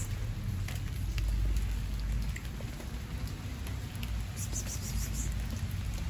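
Outdoor ambience: a steady low rumble and even hiss with scattered faint ticks, and a brief run of rapid, high-pitched chirps about four and a half seconds in.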